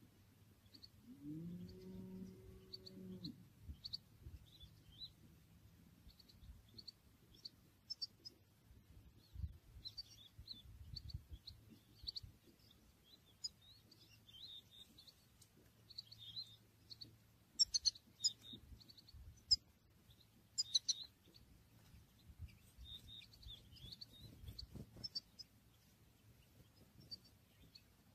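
Small songbirds calling with many short, high chirps, busiest and loudest in the second half. A low, drawn-out sound rises and then holds for about two seconds, about a second in.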